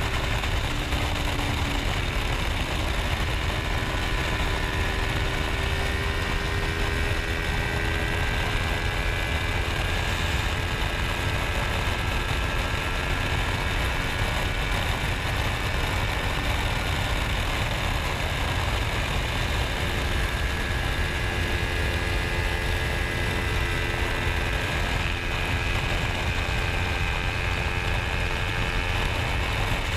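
Kawasaki Ninja 250 motorcycle engine running at steady cruising revs, its drone drifting slowly up and down through the curves, under a heavy low rumble of wind on the microphone.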